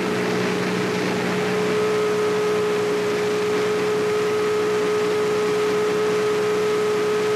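Steady mechanical hum under a strong hiss, holding one pitch throughout, with a faint higher tone joining about two seconds in.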